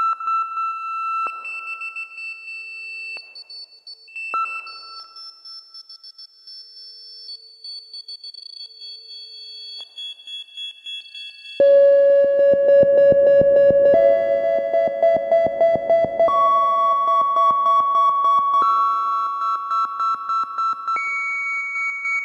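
Slowed-down, reverb-heavy electronic music intro: soft sustained synthesizer and electric-piano tones that pulse gently, break off and return. About eleven and a half seconds in it turns suddenly louder as a full synth chord with a fast fluttering pulse comes in, its notes stepping upward.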